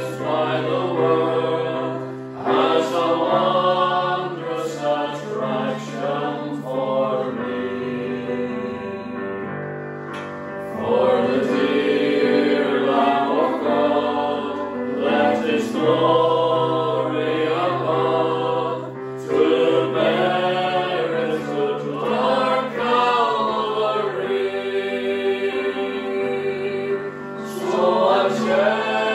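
Small mixed choir singing a gospel hymn in harmony, accompanied by sustained chords on an electronic keyboard, with short breaks between sung lines.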